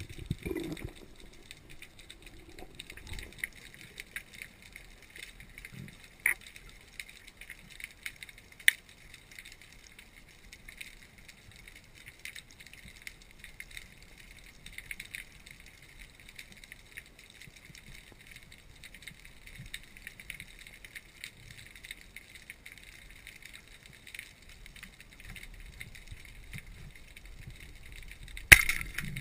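Underwater ambience heard through a diving camera's housing: a steady fine crackling with scattered small clicks, and a few sharp knocks, the loudest about a second before the end.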